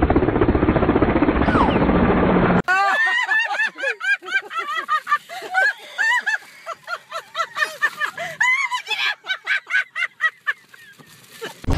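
A loud, fast pulsing rattle for the first two and a half seconds, then a woman's high-pitched laughter in repeated squealing bursts as a bison licks at her through the car window.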